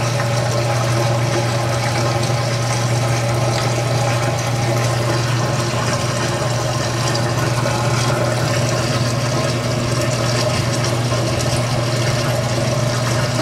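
Washing machine drain pump running with a steady low hum as water rushes out through the drain hose during the drain cycle.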